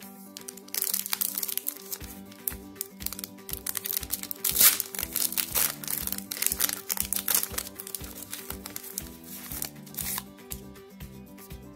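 Foil Pokémon card booster-pack wrapper crinkling and crackling loudly as hands twist and pull it open, over background music with a steady beat.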